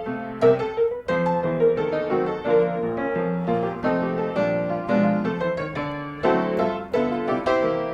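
Background piano music: a gentle melody of many separate struck notes over lower chords.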